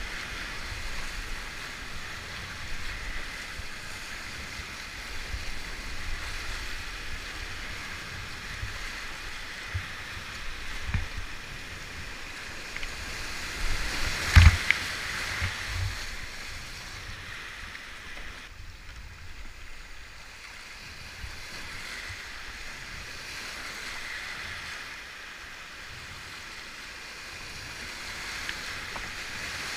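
Whitewater rapids rushing steadily around a creek kayak, with scattered low thumps. About halfway through comes one loud splashing crash as the bow plunges into foaming white water.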